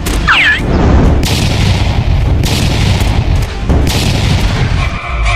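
Deep booming hits over music: a falling sweep just after the start, then heavy hits about 1, 2.5 and 4 seconds in.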